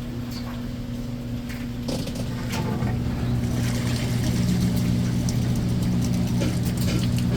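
Washing machine in its spin cycle: a steady motor hum that grows a little louder about three seconds in, with scattered light clicks and rattles.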